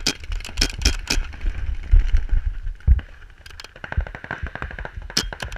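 Paintball markers firing rapid strings of sharp pops, several shots a second, with the player's own marker close by. A low rumble runs under the shots in the first seconds.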